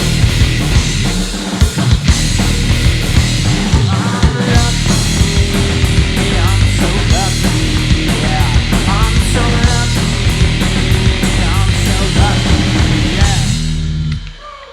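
Live rock trio of electric guitar, bass guitar and drum kit playing a loud instrumental passage, with guitar notes bending in pitch midway; the music rings out and dies away near the end.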